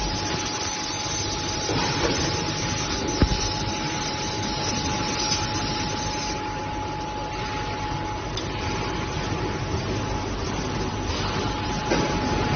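Woodworking machinery running steadily, a constant whine over mechanical noise, with a few short knocks about 2 and 3 seconds in and again near the end.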